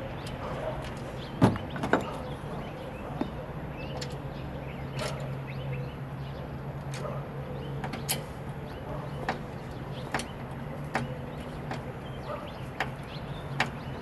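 Light metal clicks and taps, roughly one a second, from hand work on a clamped aluminium angle brace of a solar panel frame, with two louder knocks about a second and a half in, over a steady low hum.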